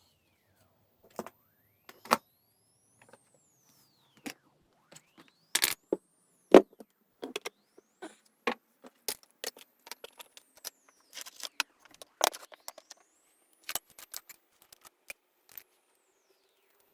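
Metal lock-picking tools clicking and clinking against a BKS euro cylinder lock: a scattered series of short, sharp clicks at irregular intervals, the loudest about six and a half seconds in.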